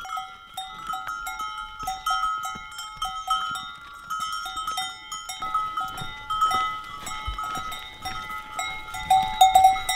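Cowbells on walking cattle, clanking unevenly at a few strikes a second, each strike ringing on the same few steady tones.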